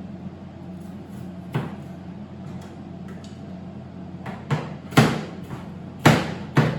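A dull kitchen knife chopping red bell pepper on a cutting board: about five irregular knocks of the blade on the board, the heaviest about five and six seconds in.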